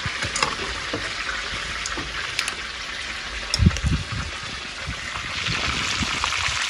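Fish frying in hot oil in a pan on a charcoal grill, a steady sizzle. The sizzle grows louder near the end as another piece of fish is lowered into the oil. There are a couple of low thuds about halfway through.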